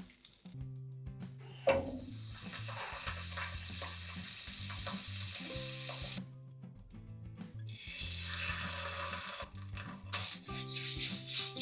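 Butter and chicken pan juices sizzling in a hot frying pan. The hiss starts suddenly about two seconds in, drops away briefly twice and picks up again. Quiet background music with a steady low beat plays underneath.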